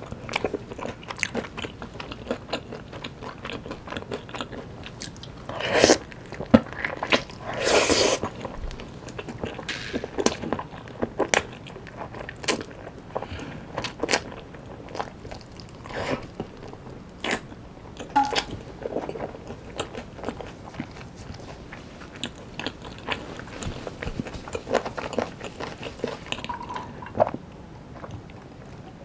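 Close-miked biting and chewing of sauced Korean fried chicken (yangnyeom chicken), with irregular crunches of the fried coating. The loudest bites come about six and eight seconds in.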